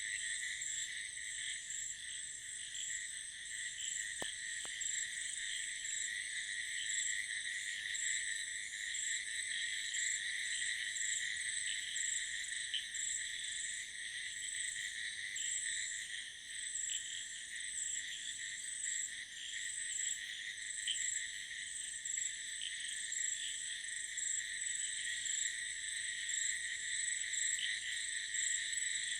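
A continuous night chorus of frogs and crickets after heavy monsoon rain. A dense, high pulsing trill runs over many overlapping calls.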